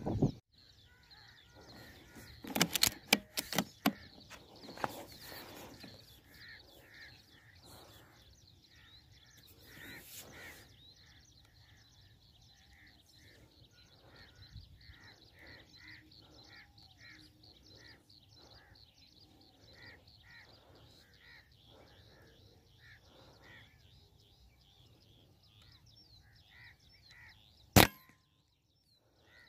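Birds calling over and over in the background, a short call repeated many times, with a few loud knocks and clicks about three seconds in. Near the end comes a single sharp crack of the Artemis M22 PCP air rifle firing.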